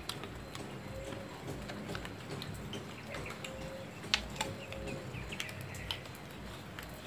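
Outdoor background with faint bird chirps and a few short low calls, and scattered small clicks; the sharpest click comes about four seconds in.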